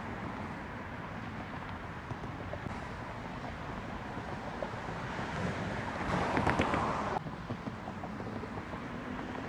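Steady road traffic with wind on the microphone, swelling louder for about a second around six seconds in.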